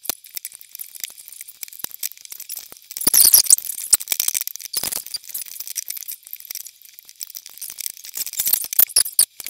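Rubber loom bands being worked onto a plastic loom hook: a run of light clicks and rattles, with a louder cluster about three seconds in.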